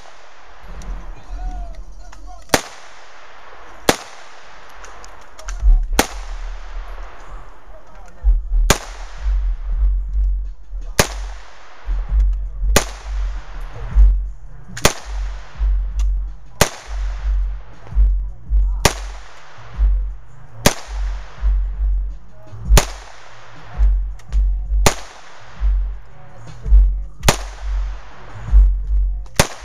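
Single shots from a 9mm AR-15 pistol in slow semi-automatic fire, about fourteen sharp cracks roughly two seconds apart, each with a short echo. Background music with a heavy pulsing bass runs underneath.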